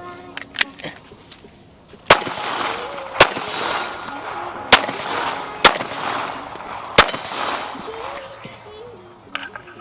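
Five single shots from a 9mm Glock pistol, fired at an uneven pace about a second to a second and a half apart, each crack trailing off into echo.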